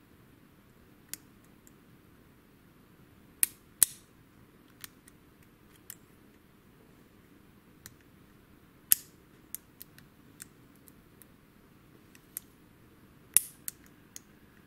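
Lock pick and tension wrench working a WILKA pin-tumbler cylinder with security pins: irregular sharp metallic clicks as the pick moves and pins set. The loudest clicks come a few seconds in, about nine seconds in and near the end.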